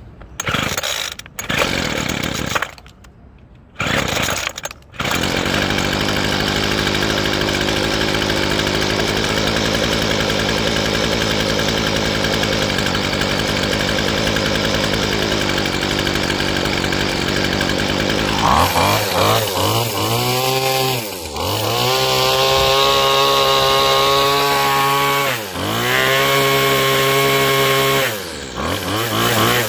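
Weed Eater Feather Lite FL26 two-stroke string trimmer being cold-started: a few short pulls on the starter cord, then the engine catches about five seconds in and runs steadily. From about eighteen seconds in it is revved up to full throttle, dropping back briefly three times between the high revs.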